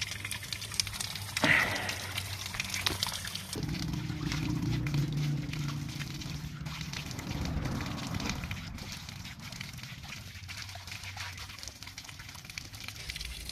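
Water sloshing and trickling in a shallow stream as someone washes in it barefoot, with a brief sharp sound about a second and a half in.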